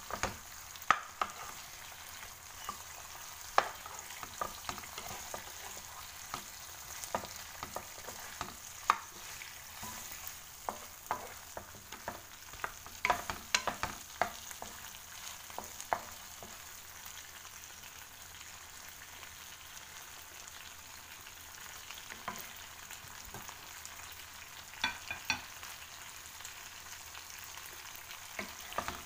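Prawns sizzling in a buttery tomato sauce in a nonstick wok, a steady frying hiss, while a wooden spatula stirs them with frequent taps and scrapes on the pan. The taps come thickly through the first half, thin out, and return briefly near the end.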